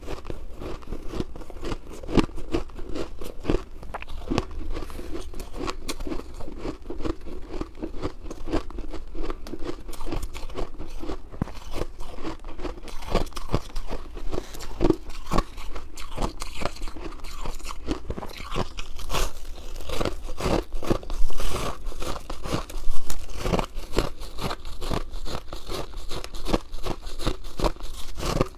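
Shaved ice being bitten and chewed: a dense, continuous run of crisp crunches, with a few louder crunches about two-thirds of the way through.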